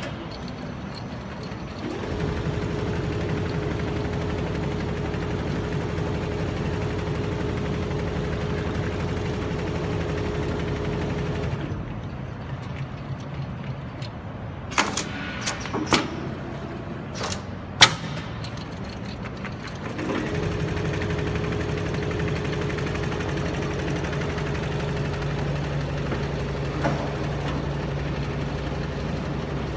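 Multi-needle quilting machine running with a steady mechanical drone and hum. It stops for several seconds partway through, with a few sharp knocks, then starts running again.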